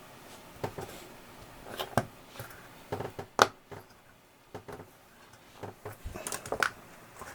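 Scattered small clicks and knocks of parts and tools being handled, irregular, with the sharpest click about three and a half seconds in and a quick cluster of them near the end.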